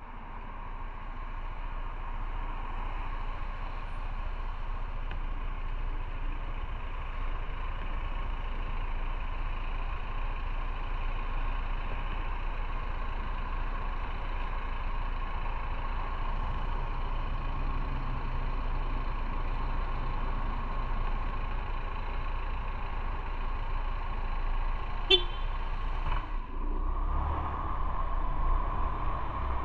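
Motorcycle riding along a road: steady engine and road noise throughout. About 25 seconds in there is one short horn toot.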